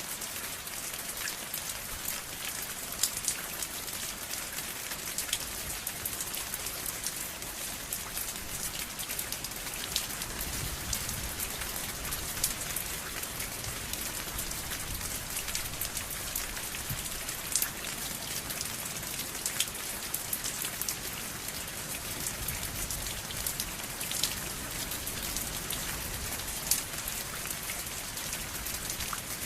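Steady rain falling on a surface: an even hiss with individual drops ticking sharply now and then.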